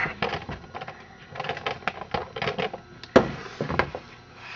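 Clicks, taps and knocks as a Husqvarna 55 chainsaw is handled with its engine off. Its plastic and metal parts clatter in uneven clusters, with one sharper knock a little after three seconds in.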